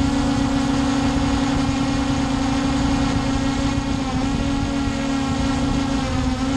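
Hubsan H501S quadcopter's four brushless motors and propellers whining steadily in flight, picked up by a camera mounted right under the drone. The pitch holds level and wavers slightly near the end.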